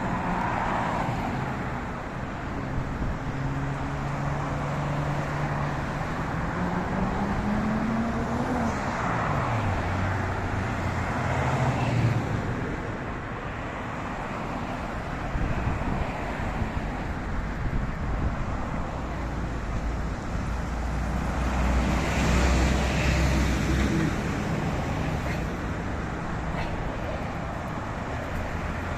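City street traffic, with vehicles running and passing steadily. About six seconds in, one engine rises in pitch, then drops again near nine seconds. From about sixteen to twenty-four seconds a deeper low engine rumble joins in.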